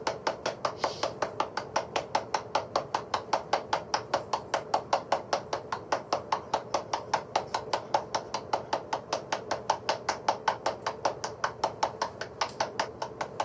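Rapid, even tapping or knocking, about four to five strokes a second, over a faint steady hum.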